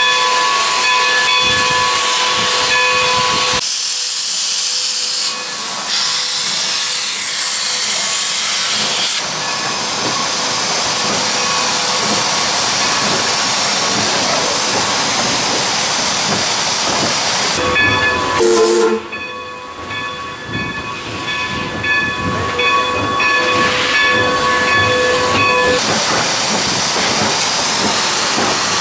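1909 steam locomotive at work: a steam whistle sounding over hissing steam, then a loud blast of venting steam for about five seconds. The locomotive runs on with mixed steam and rail noise, and a second long whistle of about eight seconds comes near the end.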